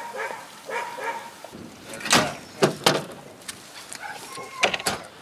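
Hunting laika dogs whining, then barking in several sharp, short barks.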